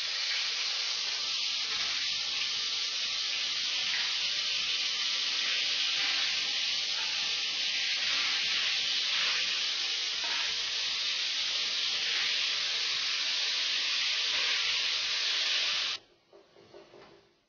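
Marinated prawns frying in hot oil in a frying pan: a loud, steady sizzle that starts abruptly as they go into the oil and cuts off suddenly near the end.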